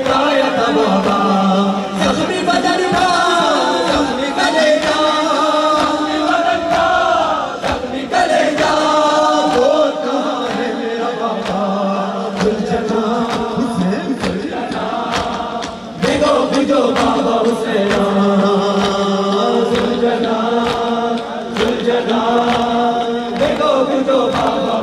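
Men's voices chanting an Urdu noha (a Shia mourning lament) over a microphone, a lead reciter with a group answering in chorus. Sharp slaps keep a steady beat through it, the mourners' chest-beating (matam).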